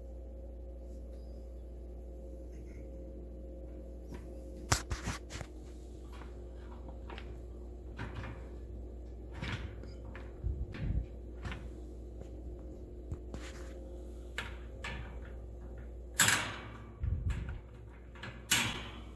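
Miele dishwasher's lower rack being handled: the wire rack clicking and rattling as it is moved and its fold-down parts are worked, with a cluster of clicks about five seconds in, lighter taps through the middle and the loudest clunks and scrapes near the end. A steady low hum runs underneath.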